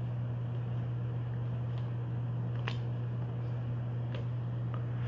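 A steady low hum, with a few faint flicks of baseball cards being slid one by one off a hand-held stack.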